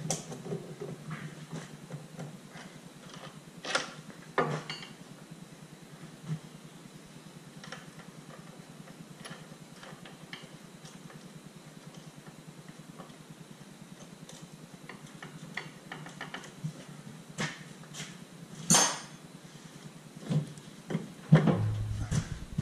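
Hand tools clinking and knocking against the steel front suspension parts of a car, in scattered irregular strikes. The loudest knocks come about three-quarters of the way through and again near the end, over a steady low hum.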